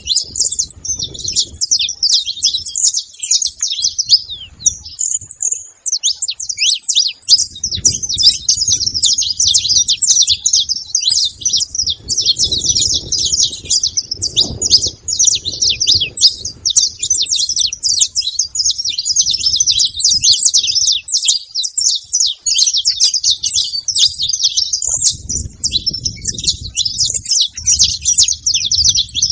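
A flock of wild saffron finches chirping together at a feeding spot: a dense, unbroken chatter of many overlapping short chirps. A low rumble comes and goes beneath it.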